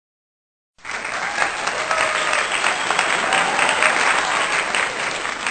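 Crowd applause, with many hands clapping, starting abruptly about a second in. A few faint voices sound among the clapping.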